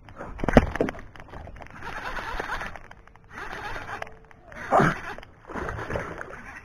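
A hooked traíra splashing and thrashing at the water surface as it is played and reeled in beside a kayak. The sound comes in repeated bursts of about a second each, with two sharp knocks, the louder one about half a second in.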